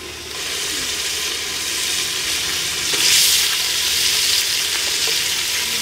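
Tomatoes frying in oil in a heavy metal pot over a wood fire: a steady sizzle that swells briefly about three seconds in.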